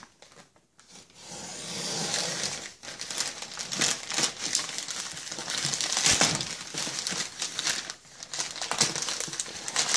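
Plastic poly mailer bag being cut and torn open by hand, the plastic crinkling and rustling continuously from about a second in.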